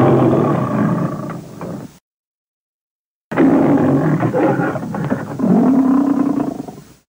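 Two lion-like monster roars from a kaiju creature sound effect, the winged-lion Griffon's roar: a roar of about two seconds, a short silence, then a longer roar that wavers in pitch and fades out.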